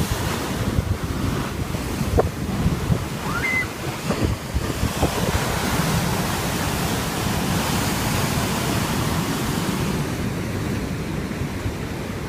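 Sea surf: waves breaking and washing in, with wind buffeting the microphone. The wash swells to a long hiss about halfway through and eases off near the end; a short high chirp sounds once about three and a half seconds in.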